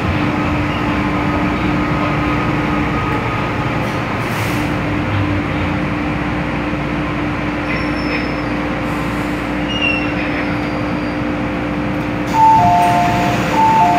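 Inside an MTR M-Train metro car at the doors as it draws to a halt at an underground station: a steady running hum with a low even tone. Near the end a two-note chime, high then low, sounds twice just before the doors open.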